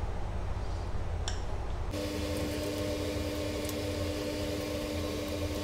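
Steady low electrical hum, joined about two seconds in by a steady mid-pitched drone. A few faint clicks come as a knife cuts through a bread sandwich on a plate.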